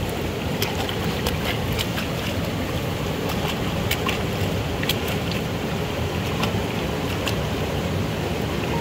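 Shallow rocky stream running steadily, with a German Shepherd puppy pawing at the water: irregular small splashes.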